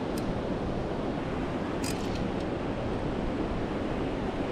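Steady rush of a river running high with runoff, mixed with wind buffeting the microphone. Two brief light clicks, one right at the start and one about two seconds in.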